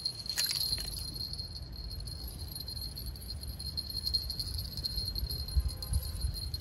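A small fishing-rod bell jingling steadily, with a few louder jingles about half a second in, over low wind rumble on the microphone.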